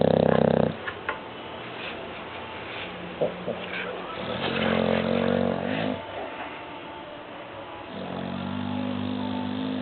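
A bulldog snoring in its sleep: long, buzzy snores come about every three and a half to four seconds. One ends just under a second in, another runs from about four to six seconds in, and a third starts about eight seconds in.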